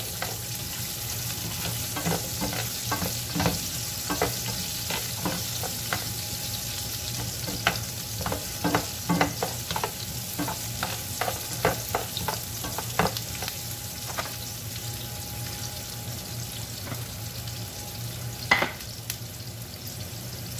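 Diced onions sizzling as they sauté in a frying pan until soft, with a spatula scraping and tapping against the pan as they are stirred. The stirring clicks come thickly through the first two-thirds, then give way to the plain sizzle, broken by one louder knock near the end. A low steady hum runs underneath.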